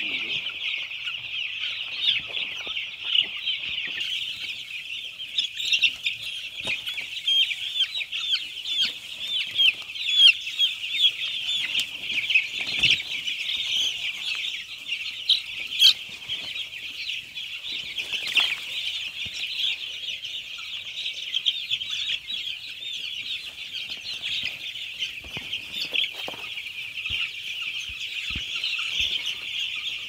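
Hundreds of five-day-old broiler chicks peeping at once, a dense, unbroken chorus of high, short cheeps.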